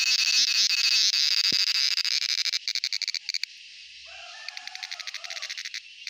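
Male cicada calling with its tymbals: a loud, high, continuous buzz. About two and a half seconds in it breaks into rapid pulses and drops quieter, and near the end it picks up again in quick pulses.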